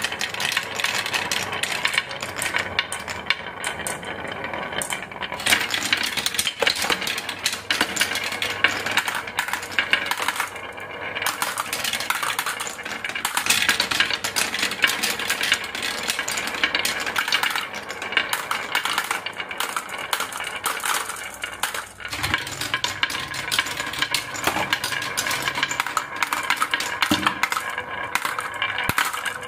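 Marbles rolling and clicking down a marble run track: a dense, continuous clatter of small hard clicks and rattles.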